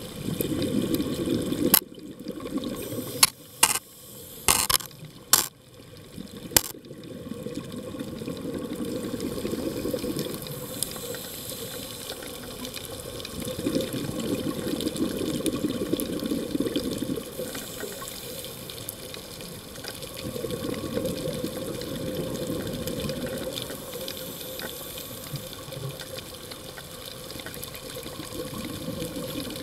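A scuba diver's exhaled bubbles rush and gurgle from the regulator, swelling and fading every few seconds with each breath, heard underwater. A run of sharp clicks or knocks comes between about two and seven seconds in.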